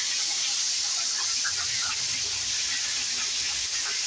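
Black bass fish frying in hot grease in a pot: a steady sizzle with small scattered crackles.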